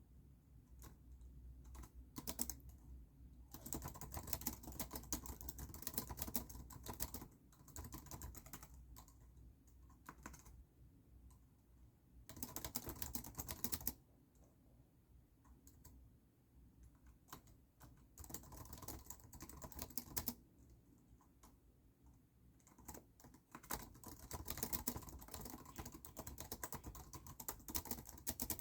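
Someone typing on a computer keyboard: runs of rapid key clicks lasting a few seconds each, broken by pauses with only scattered keystrokes.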